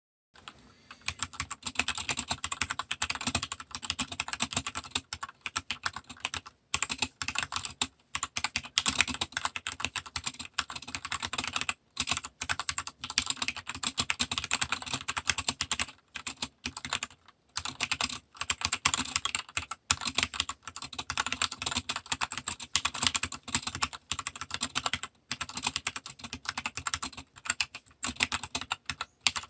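Fast typing on a mechanical keyboard fitted with PBT double-shot keycaps: a dense run of key clacks broken by a few brief pauses.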